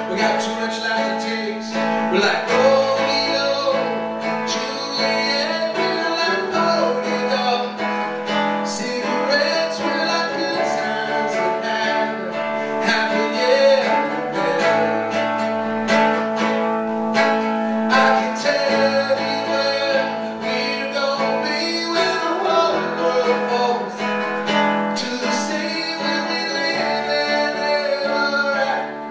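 A man singing to his own strummed acoustic guitar, live.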